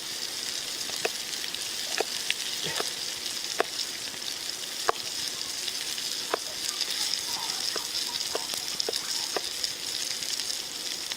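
Venison steaks and mushrooms sizzling over a campfire: a steady frying hiss with sharp pops and crackles about once a second.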